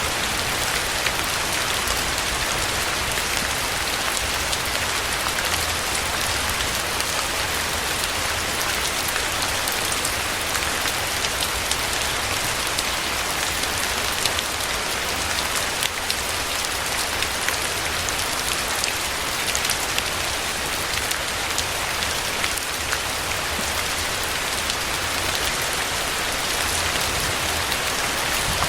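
Steady rain falling, a dense even hiss full of small drop ticks, with a low rumble underneath.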